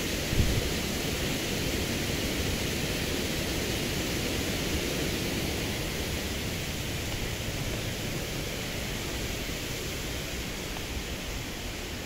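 A small waterfall's falling water rushing as a steady, even hiss, with a brief low bump about half a second in.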